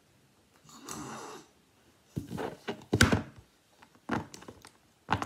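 A squishy rubber fidget puppet being squeezed and worked by hand, giving a short airy swell about a second in and then several short squelching noises that sound like farts.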